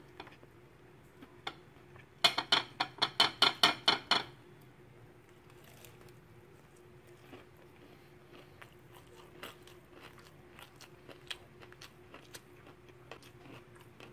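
Crispy batter-coated fried chicken strip crunching as it is bitten and chewed close to the microphone: a quick run of about ten loud crunches over two seconds, then only faint clicks over a low steady hum.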